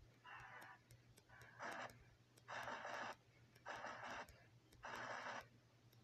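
Cartoon newspaper printing press running, a quiet rhythmic chugging of one noisy stroke about every second.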